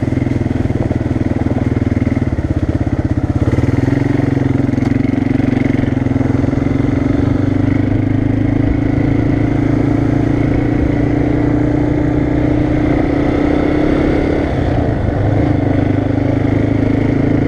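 ATV (quad) engine running steadily while under way, heard from the rider's seat. The engine pitch rises a little a few seconds in and dips briefly near the end.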